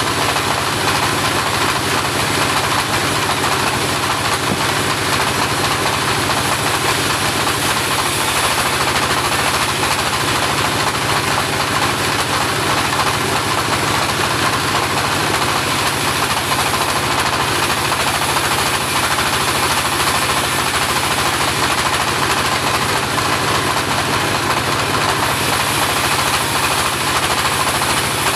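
Engine of a homemade portable bandsaw sawmill running steadily.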